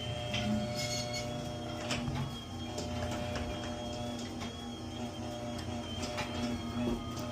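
Chamberlain belt-drive garage door opener running steadily with a high whine, driving the door down while its down travel limit is being set, with light clicks and rattles from the moving door.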